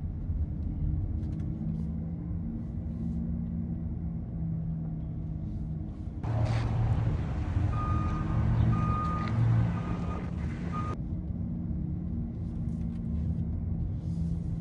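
Mercedes EQE electric car driving slowly through tight turns, heard from the cabin as a low steady hum with tyre and road rumble. For about five seconds in the middle, outdoor sound takes over: a louder rumble with wind hiss and a string of short high beeps. Then the low cabin hum returns.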